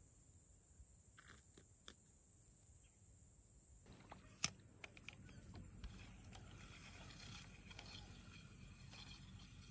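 Faint outdoor background: a low rumble and a steady high hiss, with scattered small clicks and ticks starting about four seconds in, one sharper click among them.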